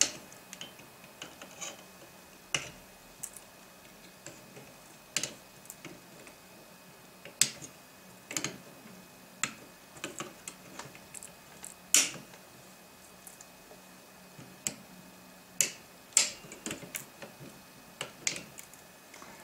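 Side cutters snipping the excess component leads off a soldered circuit board: about a dozen sharp snips at irregular spacing, a second or several apart.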